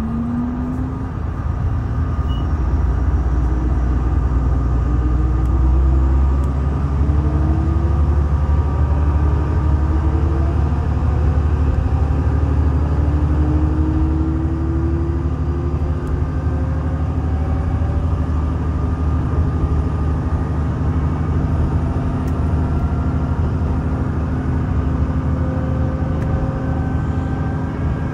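Shimabara Railway diesel railcar pulling away from a stop and accelerating, heard from inside the car: a deep, steady engine rumble that swells over the first couple of seconds, with a whine that rises in pitch again and again as the train gathers speed.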